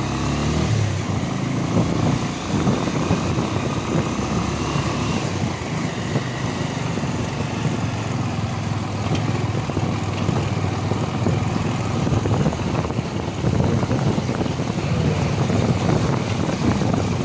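Motorcycle being ridden, its engine running steadily under heavy wind noise.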